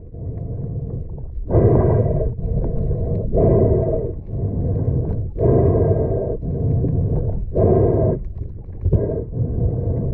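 A diver's heavy, rhythmic breathing heard underwater, a loud breath about every two seconds, with a low rumble of water between breaths.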